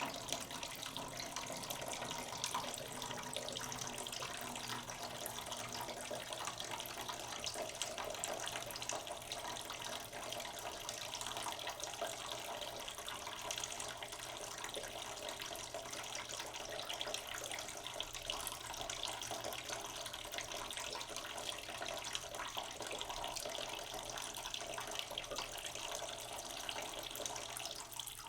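Water from a tap running slowly into a cooking pot in a sink, a steady stream filling the pot.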